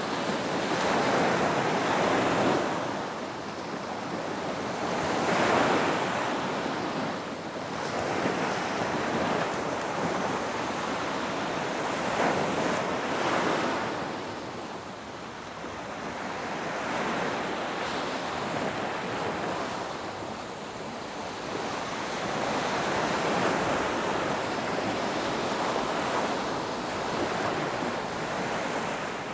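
Ocean surf washing onto a beach: waves break and recede one after another, the rush swelling and easing every few seconds.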